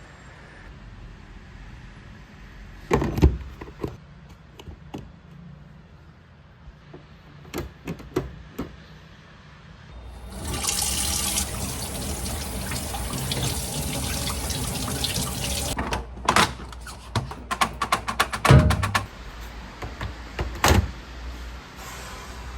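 Tap water running into a sink for about five seconds, with scattered knocks before it and a quick run of clatter and knocks after it.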